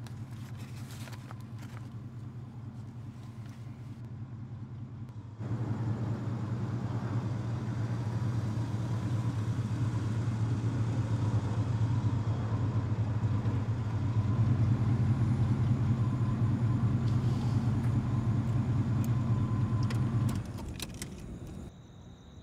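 Car driving: a steady low engine and road rumble, which gets louder about five seconds in and falls away shortly before the end.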